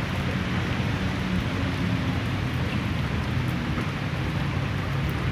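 Heavy rain falling steadily, a continuous hiss over a low rumble.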